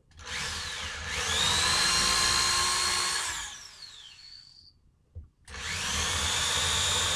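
Corded electric drill spinning up with a rising whine, running steadily for about two seconds and winding down, then starting again about five seconds in and running on. It is drilling pilot holes into a wooden rifle stock, guided by the butt plate's screw holes.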